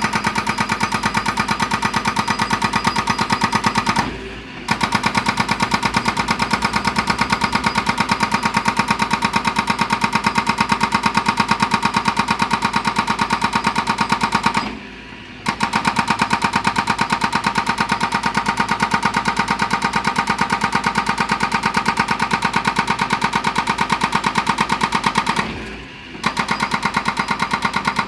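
Excavator-mounted hydraulic breaker hammer pounding stone in a rapid, even stream of blows. It stops three times for about half a second to a second, letting the engine be heard alone, then resumes.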